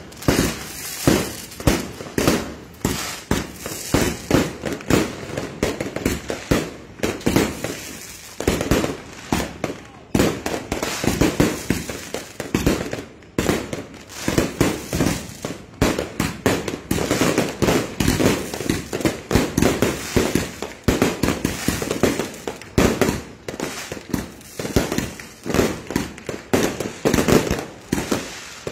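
Aerial fireworks going off in quick succession: a continuous string of bangs, about two or three a second.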